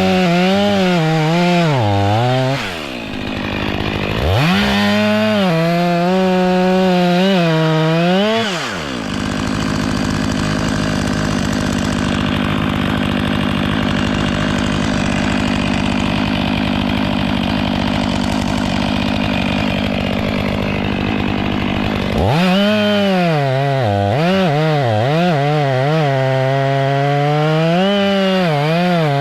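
Stihl MS 500i fuel-injected two-stroke chainsaw running at high revs with its pitch wavering up and down. In the middle it settles into a steadier, rougher, noisier sound for over ten seconds, then the wavering high revs return.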